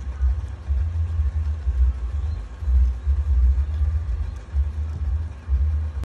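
Low, uneven rumble that swells and fades every second or so.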